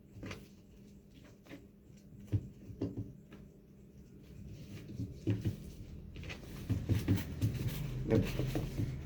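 A gift package being handled and unwrapped: scattered light knocks and taps, then denser rustling and knocking from about six seconds in.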